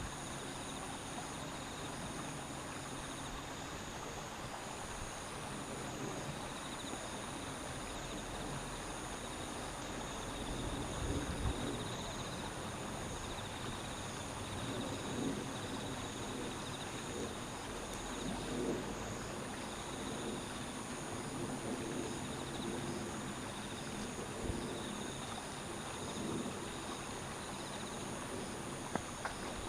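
Outdoor ambience: a steady, high-pitched trilling of insects over a low rumble and a faint hiss.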